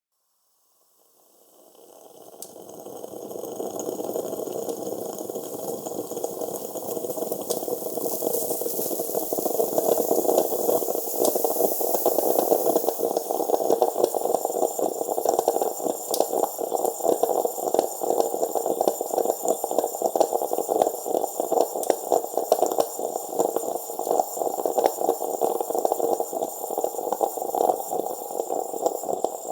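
Italian coffee machine brewing: water and steam gurgling and sputtering with a steady hiss. It fades in over the first few seconds, then keeps up a dense run of crackles and bubbles.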